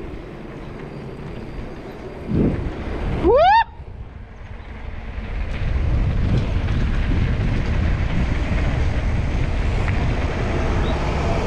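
Steady low rumble of riding along a road, with wind buffeting the microphone; the rumble grows louder about halfway through. About three seconds in comes a brief loud squeal that rises in pitch.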